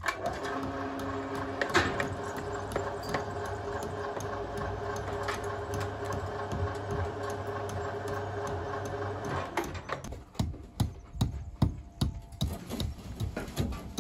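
A motor-driven machine runs with a steady hum and a light rattle for about nine and a half seconds, then cuts off suddenly. A quick, uneven run of sharp knocks follows, about two to three a second.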